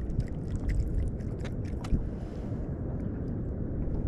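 Wind buffeting the microphone as a steady low rumble, with a run of small clicks and taps from a hooked fish and its lure being handled during unhooking.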